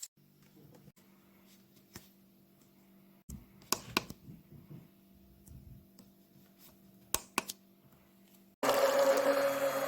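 A faint low hum with a few clicks and knocks, then near the end an electric blender switches on and runs loudly, blending the soup.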